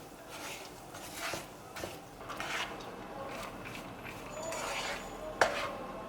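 Scattered clicks and rustles of objects being handled over a steady background hum, with a sharp knock about five seconds in.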